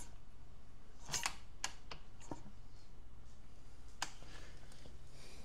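A few light, scattered clicks and knocks of hands and the phone being moved around the motorcycle, over a faint steady hum. They come as a cluster about a second in and one more about four seconds in.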